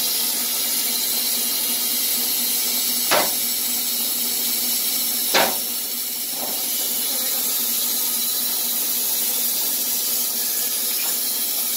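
Steady hissing machine noise with a low hum from the Wood-Mizer LT15 band sawmill running between cuts, with no blade in the wood. Two sharp knocks about three and five and a half seconds in, the second the loudest, then a fainter knock.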